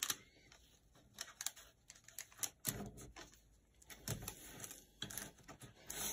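Irregular clicks, taps and rustles of paper and tape handled by hand: tape pressed down to fix a sheet of tracing paper onto heavy cold-press watercolour paper.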